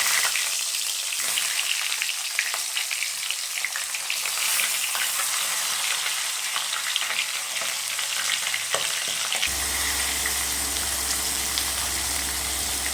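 Marinated rohu fish heads frying in hot cooking oil in a kadhai: a steady sizzle with crackling pops and spits.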